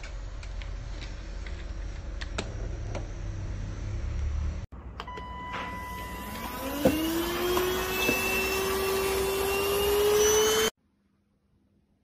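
Cordless stick vacuum cleaner: a low rumble with a few scattered clicks, then after a brief break the motor spins up with a rising whine about six seconds in. It runs steadily at a high pitch and cuts off suddenly near the end.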